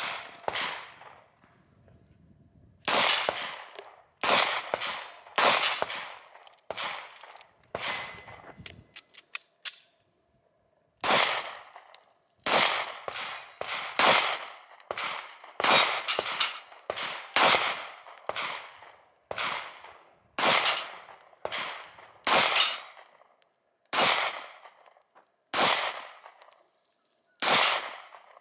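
Pistol fired one shot at a time, about two dozen shots a second or so apart with a short pause partway through, each report trailing off in an echo. Faint high pings of steel plate targets ringing when hit follow some of the shots.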